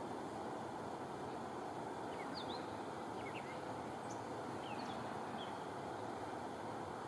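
A steady, even rush of outdoor background noise, with a bird giving a string of short, high chirps between about two and five and a half seconds in.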